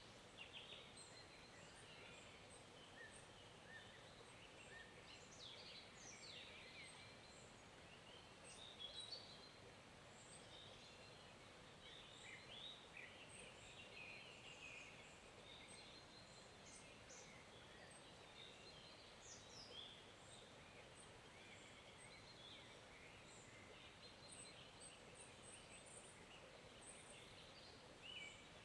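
Quiet forest ambience: small songbirds chirping and singing in short, frequent calls throughout, over a faint steady hiss of a flowing forest stream.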